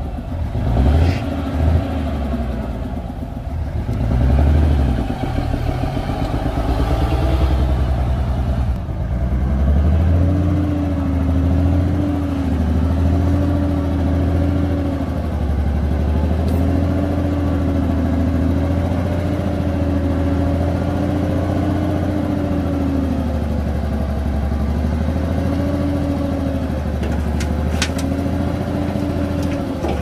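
Bulldozer's heavy diesel engine working under load. Its pitch dips and recovers every few seconds, with a few sharp clanks near the start and near the end.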